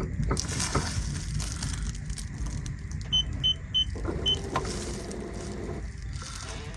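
Four short, high electronic beeps. Then a newly installed boat autopilot's electric drive motor runs steadily for about two seconds as the pilot engages, over a low steady rumble.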